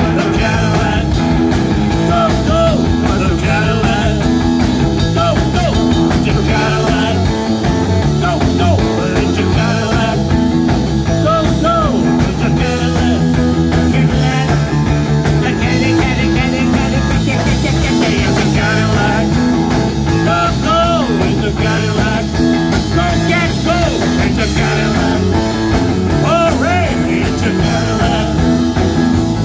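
Live rock band playing: electric guitar, electric bass and a Pearl drum kit driving a steady beat.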